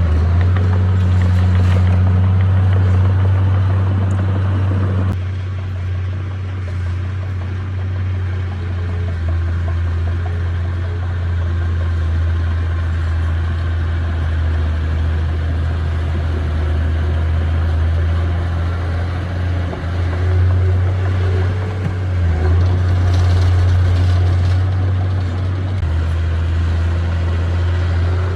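Bulldozer's diesel engine running steadily with a deep low drone, its note and loudness shifting a few times as the load changes.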